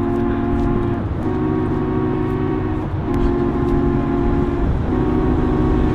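Background music: a sustained chord held for nearly two seconds at a time and repeated over and over, over a steady low rumble.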